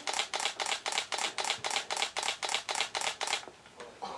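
Camera shutter firing in a rapid continuous burst, about six even clicks a second, stopping shortly before the end.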